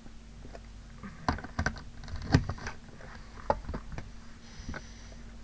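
A scatter of small clicks and taps from craft pieces being handled and pressed down on a box, the loudest a sharp tap a little over two seconds in.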